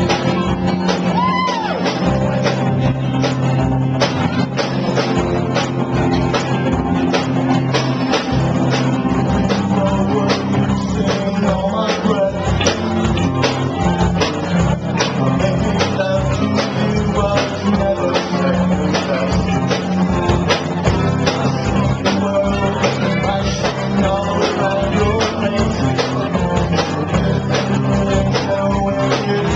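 Live rock band playing: electric and acoustic guitars over a drum kit keeping a steady beat, with sung vocals.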